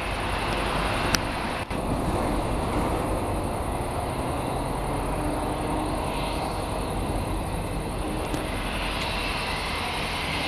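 Airbus A319-132's two IAE V2500 jet engines running at taxi power: a steady rumble and hiss, with the engine whine growing louder near the end as the jet taxies closer. A sharp click about a second in.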